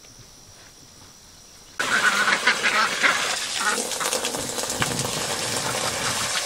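Water from a garden hose splashing into pans on the dirt floor of a duck shelter, with ducks quacking over it. It starts suddenly about two seconds in, after a quiet stretch with a faint steady high tone.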